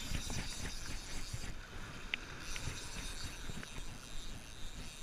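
Wind buffeting the action camera's microphone as an unsteady low rumble, over the hiss of small waves washing onto the sand and rocks, with a few faint clicks.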